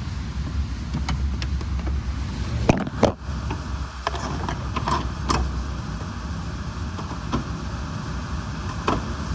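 A few sharp metallic clicks and knocks from hand tools working on the engine, the loudest two close together about three seconds in, over a steady low rumble.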